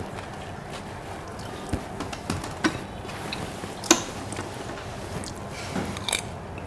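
A fork clinking and scraping against a bowl and plate as someone eats: a few scattered light taps, with one louder clink about four seconds in.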